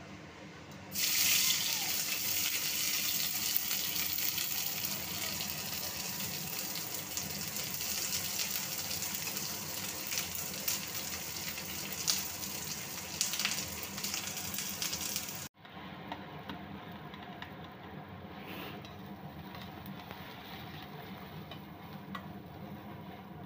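Chopped onion, ginger and garlic frying in hot oil in a metal kadai, a loud sizzle that starts about a second in. After a sudden cut the sizzle is quieter, with a spatula stirring the onions in the pan.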